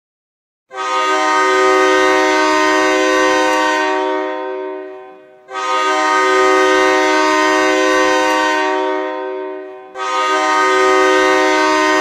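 Hockey goal horn sounding three long blasts of a multi-tone chord, each lasting about four seconds and fading out before the next, with the third still going at the end.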